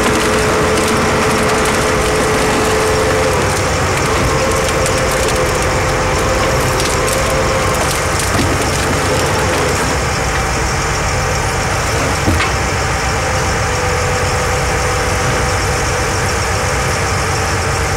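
Excavator running steadily and driving a U.S. Pride HF-800 cone splitter as the cone bores into and splits large logs, with a steady whine that steps up slightly in pitch a few seconds in. Wood cracks and splinters now and then, with a sharp crack about twelve seconds in.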